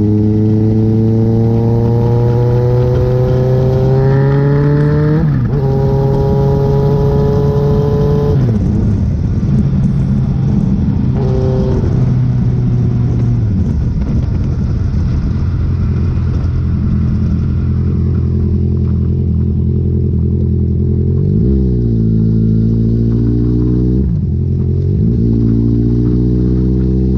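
Vehicle engine accelerating through the gears: its pitch climbs and drops at shifts about five and eight seconds in, then holds steady at cruising speed, with two quick drops and climbs again near twenty-one and twenty-four seconds in.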